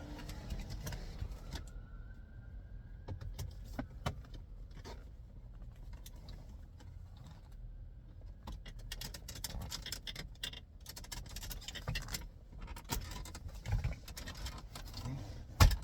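Plastic dash trim and the new radio assembly rattling and clicking as they are slid into the dashboard, ending in a sharp snap near the end as a piece clips into place.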